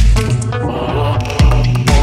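Electro lounge music track with a steady kick-drum beat, ticking hi-hats and sustained synth tones.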